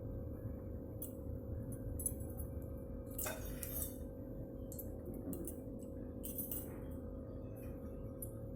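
Soft background music with a steady drone, and a few light clinks, the loudest about three seconds in.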